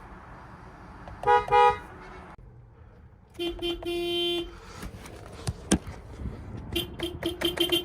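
Toyota car horn honking: two quick beeps about a second in, a longer, lower honk of about a second a little later, then a rapid series of short taps near the end. Sharp clicks come between the honks.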